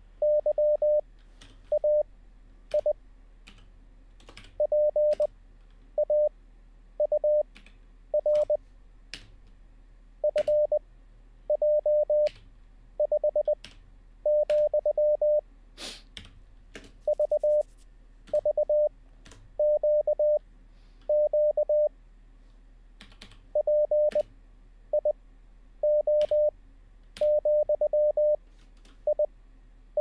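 Morse code practice audio: a single steady mid-pitched tone keyed into dots and dashes, each letter sent at 20 words per minute with long gaps between letters (Farnsworth spacing). Computer keyboard keys click in between as the letters are typed in.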